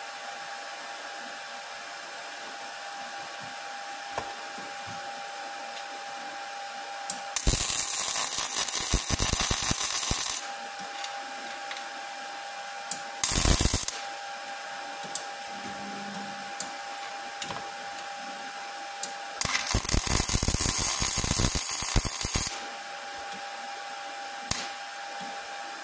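Flux-core wire welder arcing in three bursts, tack-welding steel angle iron and rebar: a crackle about seven seconds in lasting some three seconds, a short one just after, and another three-second one near the end, over a steady hum.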